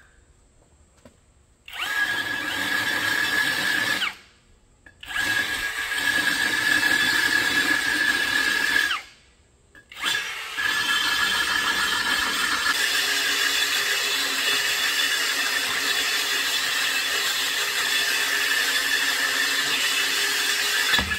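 Cordless drill driving a 32 mm hole saw through the water-wetted bottom of an earthenware jar, a steady grinding whine as the bit cuts the fired clay. It runs in three bursts, stopping briefly about 4 and 9 seconds in.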